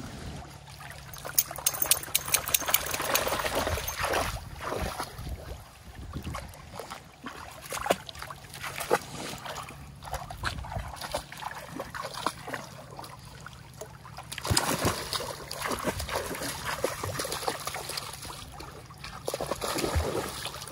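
A dog wading and splashing in lake shallows, water sloshing and trickling around the shore rocks, in louder bouts about a second in, past the middle and near the end.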